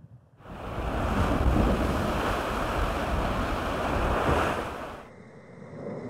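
Rushing water and wind as a racing yacht drives fast through heavy seas, with wind buffeting the microphone. It starts suddenly about half a second in and eases off near the end.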